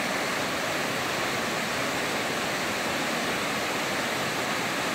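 Fast mountain river rushing and splashing over boulders, a steady loud roar of white water, the river running high in the rainy season.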